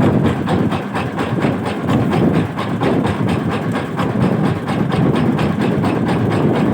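Boat engine running with an even, fast knock, about six beats a second.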